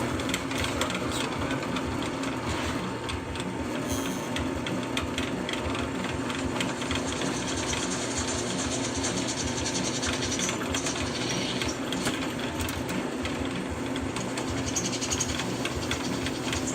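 Drill press running steadily, its 3/16-inch titanium nitride bit cutting through metal under antifreeze coolant, with a steady low motor hum and a faint even pulse about twice a second. The bit still cuts smoothly after more than 300 holes.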